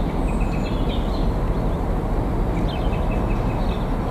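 Steady low rumble of a pair of Freightliner Class 59 diesel locomotives approaching, with small birds chirping over it in short repeated runs.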